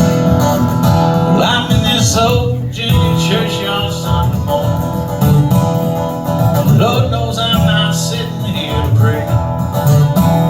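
Guitar playing the instrumental intro of a country song.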